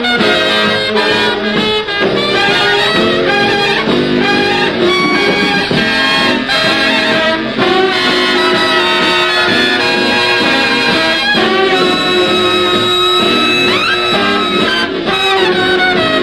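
Instrumental swing-era jazz band music led by brass and saxophones, with a few rising sliding notes in the second half.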